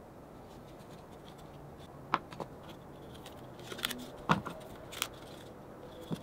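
Rubber bands being stretched and let snap around glued wooden strips to clamp them, with the strips tapping on the bench: a handful of sharp snaps and taps beginning about two seconds in, with faint scratching between them.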